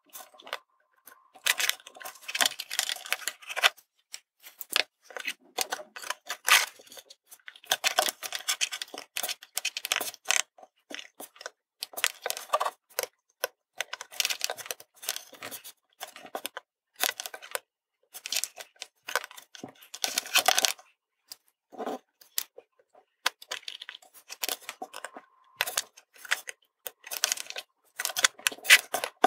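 Metal tweezers and a soldering iron tip tapping and scraping against a small circuit board and a wooden tabletop while tiny surface-mount resistors are placed and soldered: irregular clusters of light clicks and scratches.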